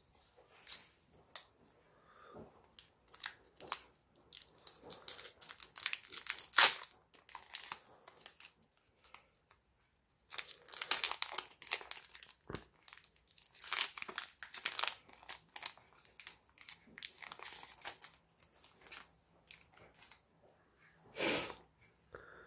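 A foil trading-card booster pack wrapper crinkling and tearing as it is opened by hand, in irregular bursts with short pauses.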